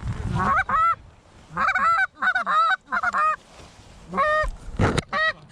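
Goose honks and clucks in quick groups of short notes, several a second, with short pauses between groups. A single sharp thump sounds near the end.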